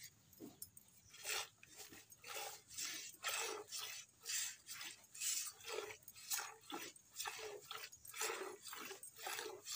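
Cow being milked by hand into a metal bucket: alternating squirts of milk hitting the pail in a steady rhythm, about two a second, stronger from about a second in.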